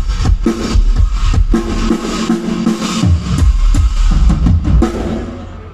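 Drum kit played fast and loud, dense strokes with heavy bass drum and snare, the playing tailing off near the end.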